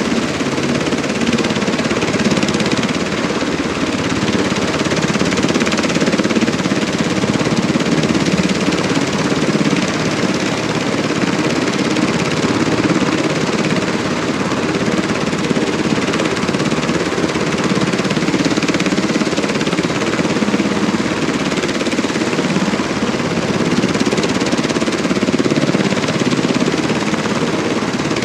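UH-60 Black Hawk helicopters running on the ground with rotors turning: the steady, loud noise of the twin turboshaft engines and the rotor blades beating the air.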